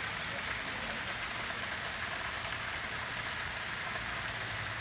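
Waterfall splashing down a rock face: a steady rushing hiss of falling water.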